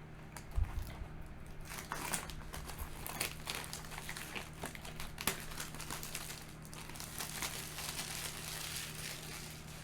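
Plastic wrapping on a trading-card booster box crinkling and crackling as it is handled and opened, with a dull knock about half a second in.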